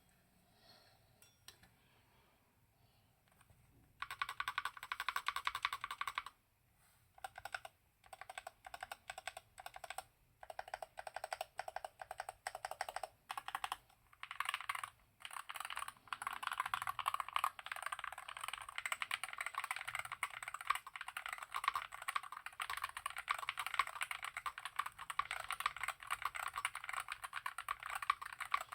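Typing on a Mad68 HE aluminium-case mechanical keyboard with Gateron Pink Jade Pro magnetic (Hall-effect) switches: rapid key clacks that start about four seconds in, stop and start in short runs, then become steady fast typing from about halfway.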